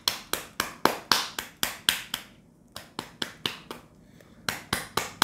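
A Mi smartphone being slapped firmly against an open palm, about four sharp slaps a second, with two brief pauses midway. The slapping is meant to knock internal parts that may have come loose back into place, to cure a phone stuck on its boot logo.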